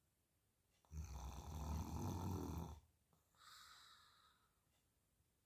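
A loud, low, rasping snore-like sound lasting almost two seconds. It is followed by a shorter, quieter, higher sound that falls in pitch, like a breath drawn back out. The pair begins to repeat right at the end.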